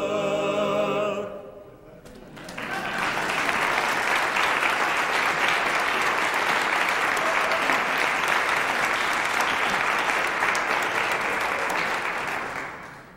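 A male barbershop quartet's final held chord ending about a second in, followed by about ten seconds of applause that fades away near the end.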